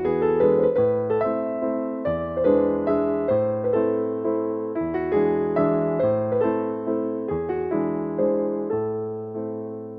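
Background piano music: a gentle melody of struck notes over bass notes that change every two seconds or so.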